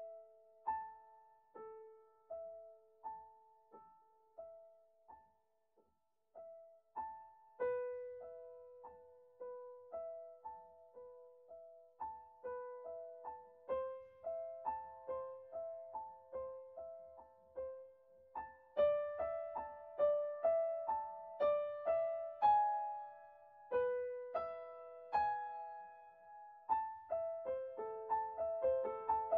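Soft background piano music: a slow line of single notes, one about every second, that fills out with more notes after several seconds and grows louder through the second half.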